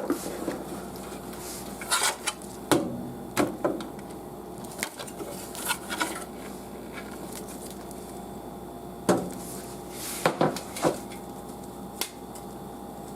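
Irregular clicks, knocks and clatter of hard objects being handled: a modular PC power supply and its cables being picked up and moved. A few knocks come about two to four seconds in, then a cluster of sharper ones later.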